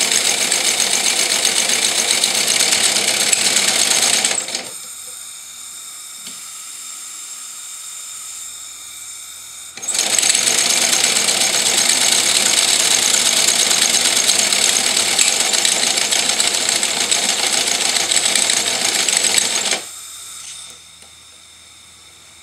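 Model Pennsy A3 switcher locomotive chassis running fast on its hose supply, a loud, steady rapid exhaust beat and clatter of its cylinders and valve gear. Twice it drops to a much quieter hiss: from about four and a half seconds in for some five seconds, and again near the end.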